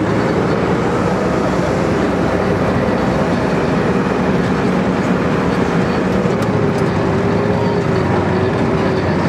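T-55 tank's V-12 diesel engine running and its steel tracks clattering as it drives across rough ground: a loud, steady rumble with a faint wavering whine.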